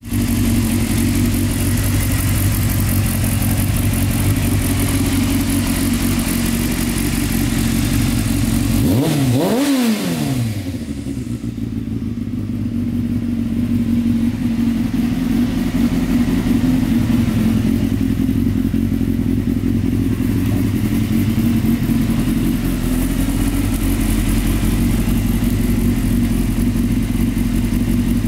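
Honda CBR600F's inline-four engine idling steadily, with a short blip of the throttle about nine seconds in.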